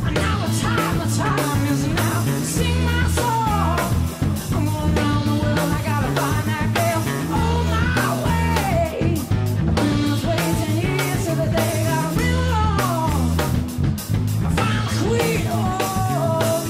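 Background rock music with guitar, drums and a singing voice.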